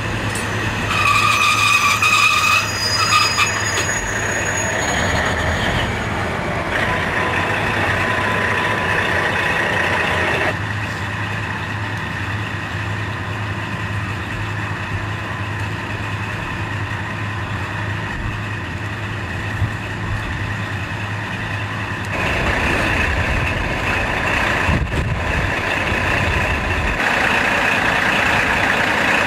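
KiHa 40 diesel railcar's engine idling steadily, with a short high-pitched tone sounding about a second in and again briefly near three seconds.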